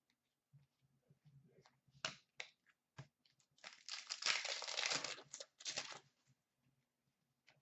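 A foil trading-card pack being torn open and its wrapper crinkled, loudest for about a second and a half midway, with lighter rustles and clicks of handling before and after.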